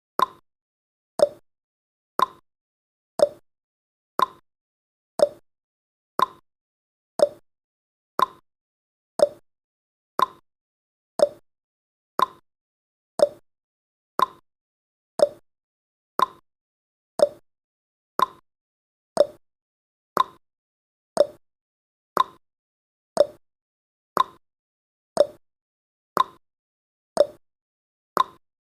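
Countdown timer's ticking sound effect: one short, sharp tick every second, each dying away quickly.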